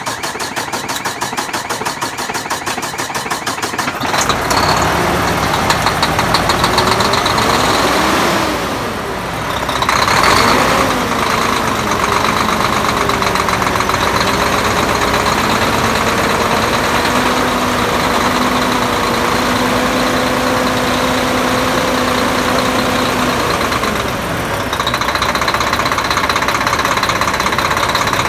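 Volvo D13 diesel truck engine being started for the first time after replacement of its double idler gear in the timing gear compartment: a hard start, with the starter cranking evenly for about four seconds before the engine fires. It then runs with its speed rising and falling unevenly and settles to a steady idle near the end.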